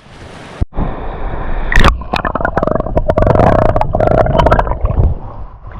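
Seawater sloshing and splashing around a waterproof action camera at the sea surface, dense with sharp knocks of water against the housing.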